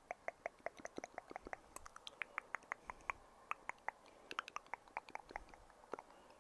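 Close-miked ASMR triggers: a fast, uneven run of small sharp clicks and pops, several a second, with a couple of brief pauses.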